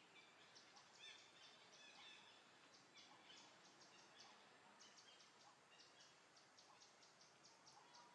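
Near silence: faint outdoor forest ambience, with short high chirps repeating irregularly several times a second over a low hiss.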